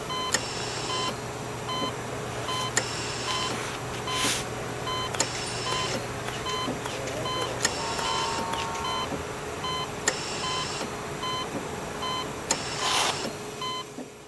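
Electronic beep repeating about once a second over a steady hiss of street noise, with scattered sharp clicks and two brief louder rushes of hiss. A low hum runs under it and stops about halfway through.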